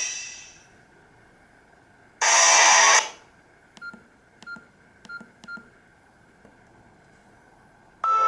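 Nokia E66 phone tones from its speaker. A guitar ringtone fades out at the start. About two seconds in comes one short, bright tone lasting under a second, then four faint short beeps. A marimba-like ringtone starts near the end.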